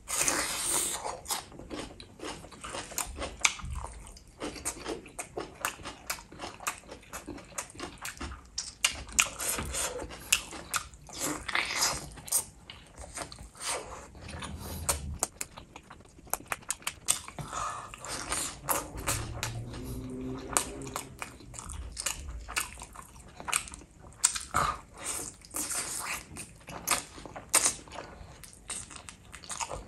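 Close-miked eating sounds: wet chewing, lip smacking and crunching as a man eats chicken, rice and gravy by hand, with many quick sharp clicks throughout.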